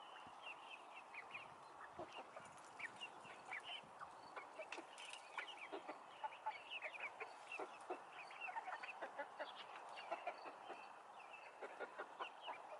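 A small flock of chickens clucking faintly while they peck at the ground, with many short, high chirping calls overlapping throughout.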